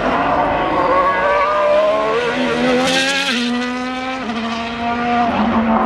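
Ferrari SF-23 Formula 1 car's 1.6-litre turbo-hybrid V6 lapping at speed. Its engine note climbs and then drops sharply twice near the middle, about a second apart, as it changes gear.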